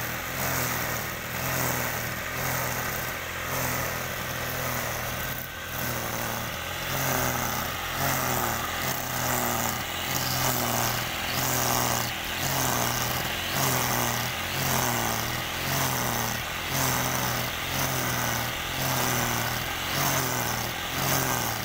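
Petrol brush cutter with a nylon-line trimmer head running at cutting speed, its engine note rising and falling about once a second as the head is swept back and forth through the grass.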